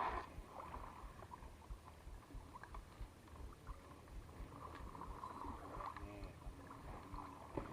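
Faint water sloshing and splashing, with a few soft knocks and a distant voice about six seconds in.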